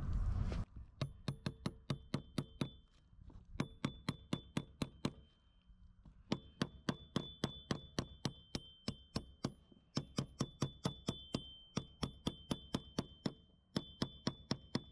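A hammer tapping an 18 mm steel socket, used as a driver to press a new shaft seal into a Minn Kota trolling motor's lower-unit housing. Light, quick taps, about four a second, each with a short metallic ring. They come in runs broken by brief pauses.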